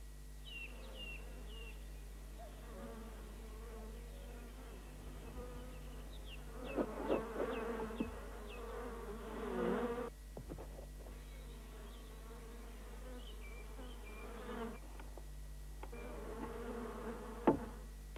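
Honeybees buzzing around an open wooden beehive, the buzz swelling and fading, with short high chirps in a few small runs. A single sharp knock near the end is the loudest sound.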